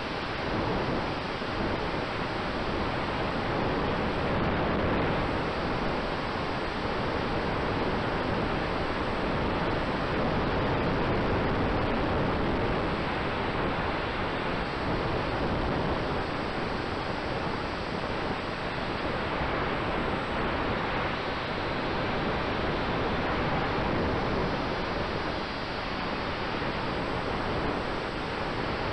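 Steady rushing noise from the onboard camera of a large-scale model aircraft in flight, airflow buffeting the microphone, with a faint steady tone underneath.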